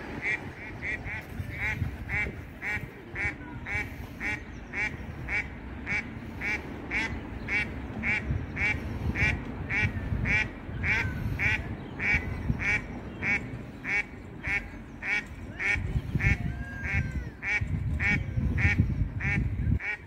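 A water bird calling over and over, a short sharp call about twice a second, with a low rumble underneath that grows near the end.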